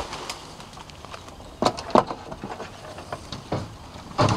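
Footsteps crunching on the ground, with a few sharper knocks about two seconds in and again near the end.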